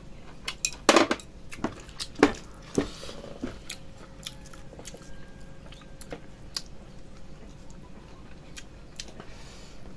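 A person eating with bamboo chopsticks: chewing and a scatter of sharp clicks of the chopsticks against the dish, the louder clicks in the first three seconds, fainter and sparser after.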